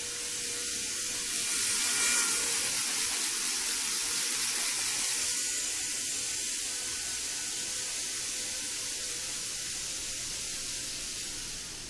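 Kato N-scale 500 Series Shinkansen model train running at speed around the track, a steady hissing whirr of its motor and wheels on the rails, a little louder about two seconds in.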